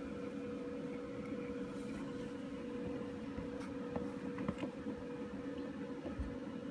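A steady low electrical hum fills the room, with a few faint light clicks from small plastic toy figures being handled about three and a half to four and a half seconds in, and a soft low thud near the end.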